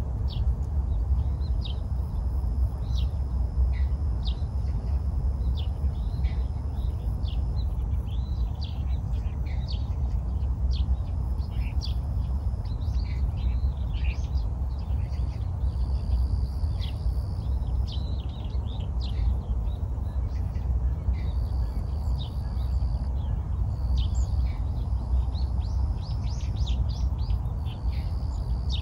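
Many small birds chirping in short, quick calls, with high held tones that start and stop every few seconds, over a steady low rumble.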